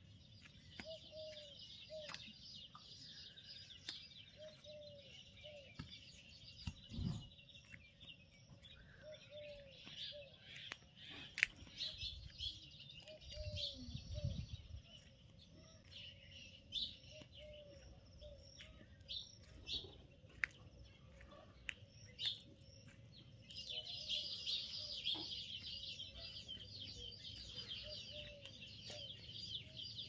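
Many small birds chirping and twittering, thicker toward the end, with a lower call repeated about once a second through the first half. Two brief low rumbles break in partway through.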